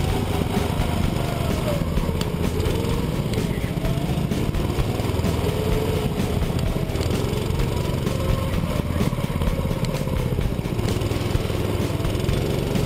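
Small petrol go-kart engine running under load, recorded onboard, its pitch rising and falling as the kart speeds up and slows through the corners.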